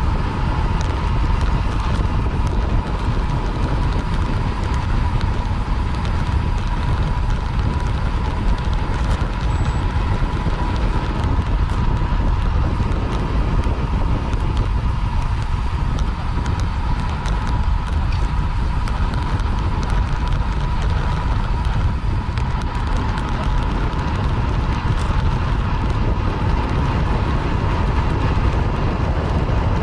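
Wind buffeting the microphone of a bicycle-mounted action camera while riding at race speed, mixed with road and tyre rumble. A steady high whine sits under the rush.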